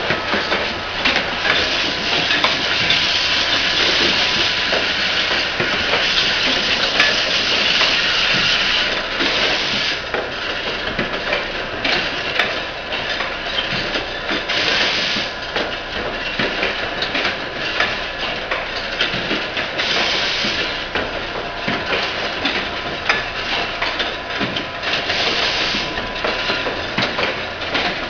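Automatic insulin syringe assembly machine running: a continuous clatter of small clicks and knocks from its moving parts, with bursts of pneumatic air hiss every five seconds or so.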